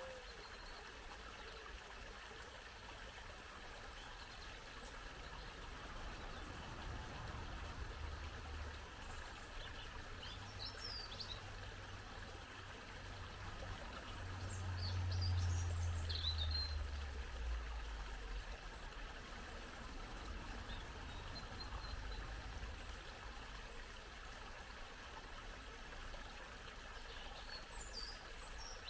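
Small brook babbling and trickling steadily, with birds chirping now and then. A low rumble swells and fades around the middle, the loudest sound here.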